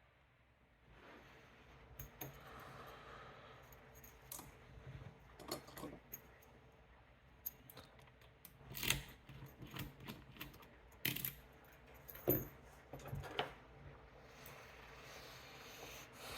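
Small metal lock-picking tools clicking and scraping in an Assa 700 pin-tumbler lock: quiet, irregular light clicks, with a few sharper metal clinks in the second half.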